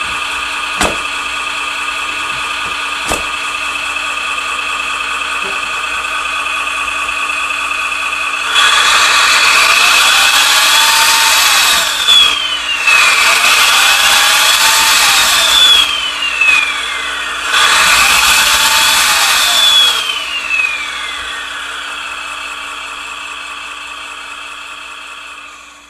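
Electronic diesel-engine sound from an RC truck's Servonaut SMX sound unit, played through a small speaker: a steady idle, a few sharp plastic clicks early on as the plow is fitted, then three loud revs, each rising and falling in pitch, before the idle fades out.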